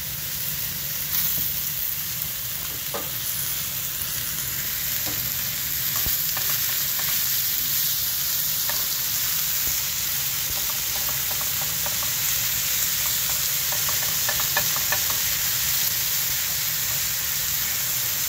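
Japanese turnip wedges and turnip greens sizzling in oil in a hot nonstick frying pan: a steady hiss of frying while the greens warm through, with scattered light clicks and taps.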